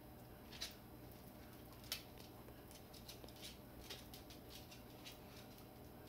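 Faint, scattered light clicks and scratches from a beagle and a parrot moving about at the kitchen counter and cabinets, two sharper ones near the start and a run of softer ones through the middle.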